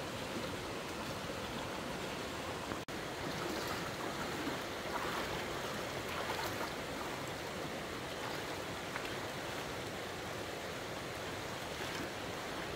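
Steady rushing of a fast-flowing stream in spate, with a split-second break about three seconds in.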